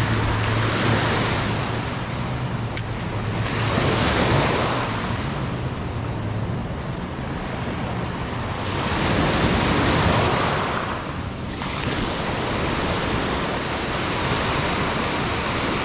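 Small shore-break waves breaking and washing up the sand, swelling and ebbing every few seconds, with wind buffeting the microphone.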